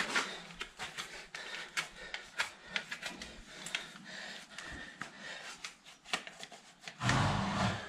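Hoof knife paring the sole of a horse's unshod hoof: quick, irregular scraping and clicking strokes of blade on hoof horn. A louder noisy burst comes near the end.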